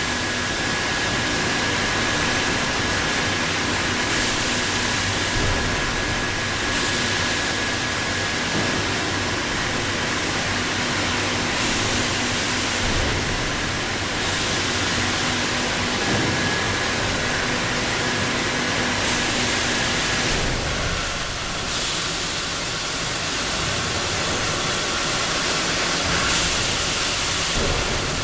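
Industrial shelf and cart washing machine running: a steady rushing hiss from its nozzles, with a motor hum and a steady whine that drop out about two-thirds of the way through. The hiss swells briefly every few seconds.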